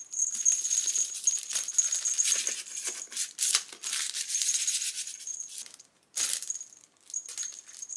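Cat toy rattling: irregular clicks and rattles, with short breaks about six and seven seconds in.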